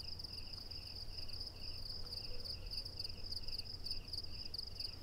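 Crickets chirping in night ambience: a continuous high pulsing trill, with a second, lower chirp at about four a second that fades out about two seconds in, over a steady low hum.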